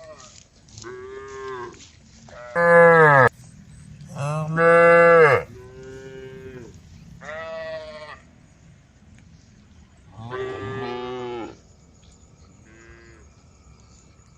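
Several cows mooing to one another: about seven separate calls of differing pitch, two of them loud and close, the others fainter, with a short faint one near the end.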